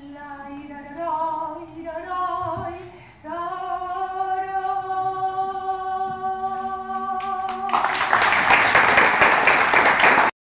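A woman singing unaccompanied, ending on one long held note, followed by audience applause that breaks out about eight seconds in and cuts off abruptly near the end.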